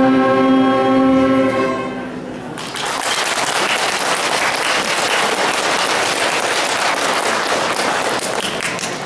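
Woodwind ensemble of flutes, saxophones and clarinet with an accordion holding a final chord, which stops about two seconds in. Audience applause follows and continues to the end.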